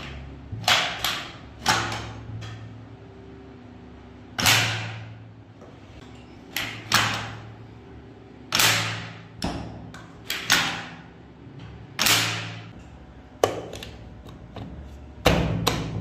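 Metal clacks of a restored 7.62 mm light machine gun's action being worked by hand. There are about a dozen sharp strokes, several in quick pairs, each ringing briefly.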